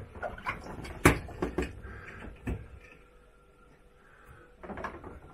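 Wet plastic toy parts being lifted out and shaken, knocking and clicking against each other and their container: one sharp knock about a second in, a few lighter clicks after it, then more handling near the end.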